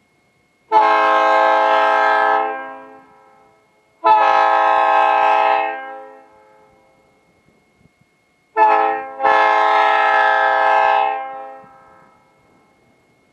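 Leslie S3J three-chime train air horn, roof-mounted on a car, sounding a chord in a long, long, short, long pattern, the standard grade-crossing signal. Each blast trails off over about a second as the air is cut.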